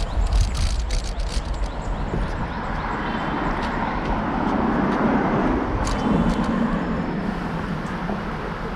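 Road traffic noise, with a motor vehicle passing close by about four to seven seconds in.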